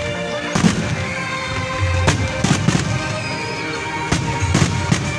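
Aerial firework shells bursting in a string of sharp bangs, about seven, irregularly spaced, over music that plays throughout.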